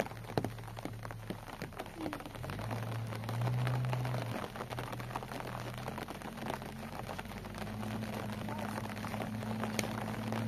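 Steady rain with many small drop ticks, under the low, steady hum of a pickup truck's engine moving slowly over rough ground; the engine note rises and grows louder about three seconds in.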